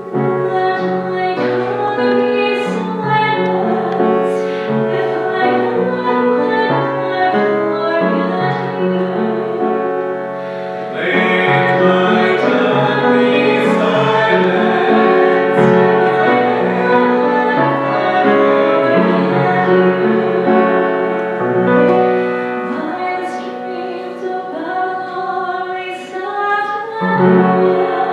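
Piano playing an introduction, then a woman cantor singing into a microphone over her own piano accompaniment from about eleven seconds in, louder from there on: the responsorial psalm sung after the first reading at Mass.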